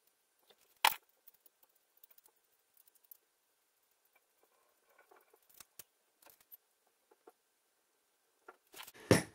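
Light metallic clicks and taps as a new water pump and its bolts are handled and threaded in by hand on an engine block. There is a sharp click about a second in and a cluster of louder clicks near the end.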